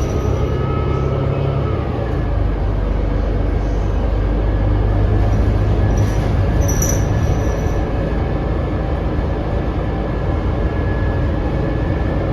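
Cabin sound of a New Flyer XD40 diesel city bus under way: a steady, loud low drone of engine and running gear, with a thin, steady high whine running through most of it. The rider finds this bus's sound abnormal and does not know its cause.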